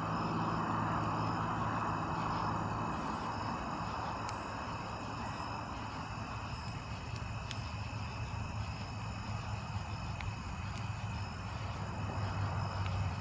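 Insects chirping steadily, over a low steady hum; a soft hiss is strongest in the first few seconds, then fades.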